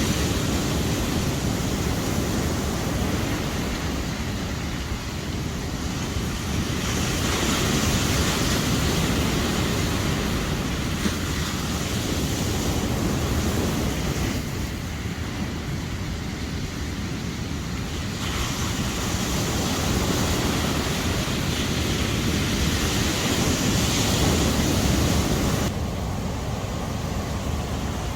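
Sea surf washing onto a beach: a steady rushing noise that swells and eases every few seconds, changing abruptly a few times.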